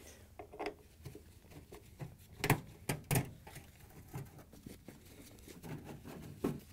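A quarter-inch nut driver backing screws out of a refrigerator's sheet-metal rear access panel: scattered light clicks and scrapes of the tool on the screws and panel, with sharper clicks about two and a half and three seconds in and again near the end.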